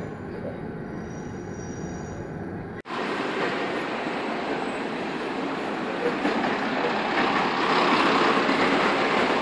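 A train rumbling faintly in the distance, then, after an abrupt cut, a Bayerische Oberlandbahn diesel train running past on a nearby track: a steady rushing rail noise that grows louder about seven to nine seconds in.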